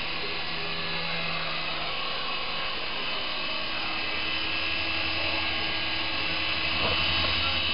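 Micro coaxial RC helicopter of the Syma S107G type in flight, its small electric motors and rotors giving a steady whir that grows a little louder about seven seconds in.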